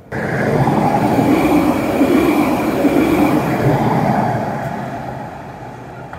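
Alstom Citadis 403 tram passing close by on grassed track: a steady rumble of wheels on rail with a faint high whine from the running gear, loud at first, then fading over the last couple of seconds as the tram pulls away.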